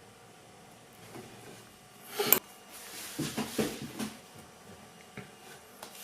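Small hard parts of a disassembled camera lens module handled on a tabletop: one sharp click about two seconds in, then a second or so of clattering and rustling, and a couple of light taps near the end.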